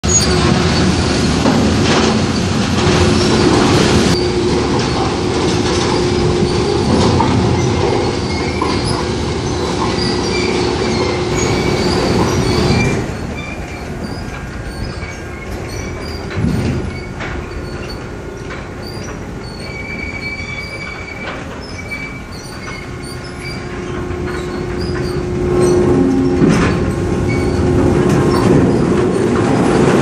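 Sawmill log conveyors running: a chain-driven log trough carrying logs on steel plate, a steady mechanical clatter with a thin high whine. It drops quieter about 13 seconds in and grows loud again near the end.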